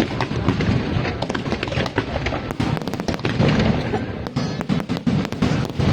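Aerial fireworks going off in a rapid, irregular string of bangs and crackles, over music from loudspeakers.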